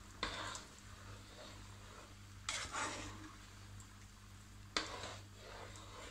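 Plastic slotted spatula stirring a thick bulgur and vegetable mixture in a coated frying pan, with three sharp scrapes against the pan about two seconds apart, the middle one doubled, between quieter stirring.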